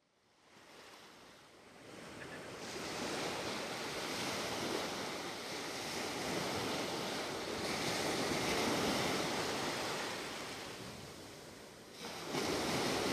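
Choppy sea waves washing and wind buffeting the microphone: a steady rushing noise that fades in over the first two seconds and changes abruptly near the end.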